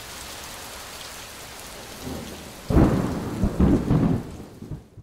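Thunderstorm: steady rain hissing, then a thunderclap breaks about two and a half seconds in, the loudest sound here, and rumbles for about two seconds before dying down. The sound cuts off abruptly at the end.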